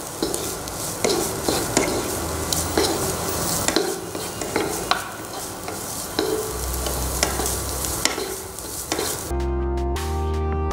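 A wooden spoon stirs and scrapes chopped onions, green chillies and carrots sautéing in hot oil in a nonstick kadai, with a steady sizzle and scraping strokes about twice a second. About nine seconds in, background music starts abruptly.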